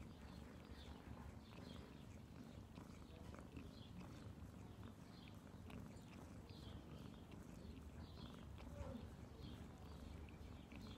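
Cat grooming itself, licking its front paw: faint soft licking sounds about once a second over a low steady rumble.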